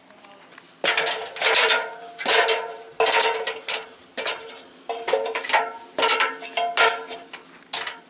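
A series of sharp metallic clanks at an uneven pace, about a dozen of them, each ringing briefly with a clear tone.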